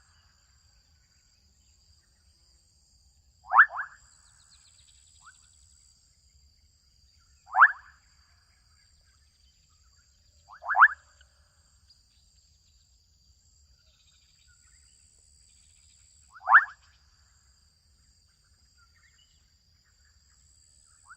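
Adolescent frogs calling in a wetland: single short upward-sweeping calls, four of them spaced three to six seconds apart. A steady, faint, high-pitched drone runs underneath.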